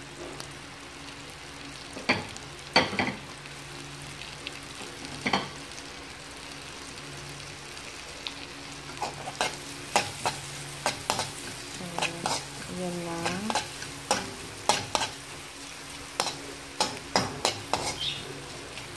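Onion and garlic sizzling in butter in a metal wok, with a steady frying hiss. A metal spoon stirs and scrapes them, clicking and knocking against the pan a few times early on and much more often in the second half.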